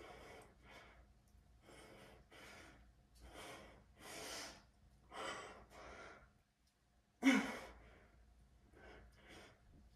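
A man breathing hard through a set of bicep curls: short, forceful exhales coming roughly one or two a second, with one loud grunted exhale about seven seconds in.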